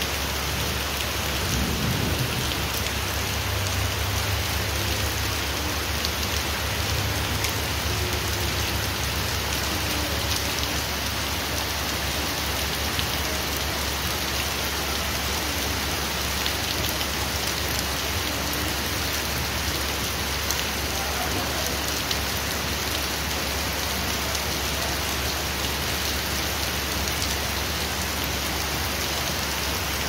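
Heavy rain pouring onto paved ground and standing water, a steady dense hiss.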